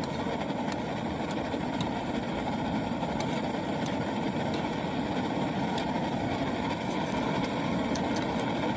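Optimus Nova pressurized liquid-fuel camp stove burning steadily with a continuous rushing noise from its burner, with a few faint scattered ticks.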